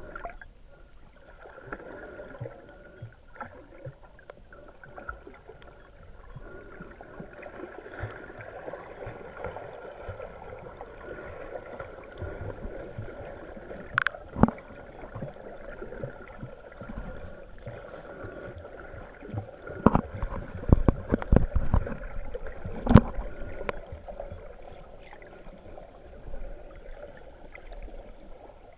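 Muffled water heard underwater through an action camera's waterproof housing: a steady wash of moving water, with a few sharp knocks about halfway through and a quick cluster of knocks and clicks in the last third.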